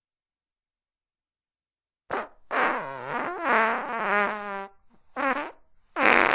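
Fart sound effects: after about two seconds of silence, a short blip, then a long wavering, pitched fart, a brief one, and a loud one starting near the end.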